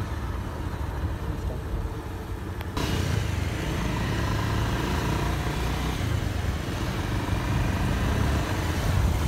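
Motorcycle running along a road, a steady low engine rumble mixed with wind and road noise on the microphone. About three seconds in the sound changes abruptly, becoming louder and brighter.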